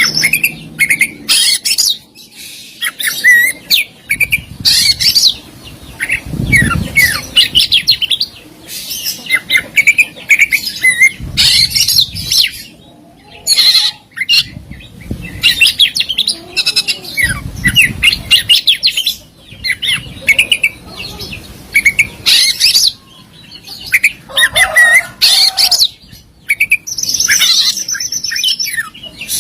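Oriental magpie-robin (kacer) singing a long, varied song of rapid chirps, harsh squawks and whistled phrases, delivered in bursts with short pauses between them.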